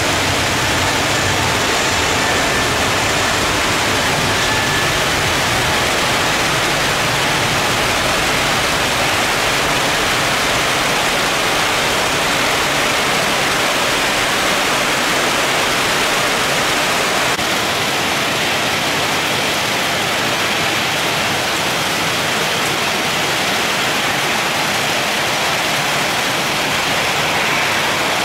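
Steady hiss of very heavy tropical rain pouring down. A low rumble sits under it for the first half or so, then fades away.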